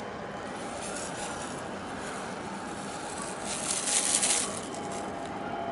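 Steady low drone of a large container ship passing close. A brief hissing rush comes a little past the middle and is the loudest part.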